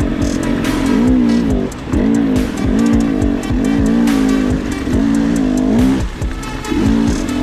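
Dirt bike engine working up a rocky creek bed. It is held on the throttle, then chopped and opened again several times, so the engine note drops and climbs back, and there are scattered knocks from the ground.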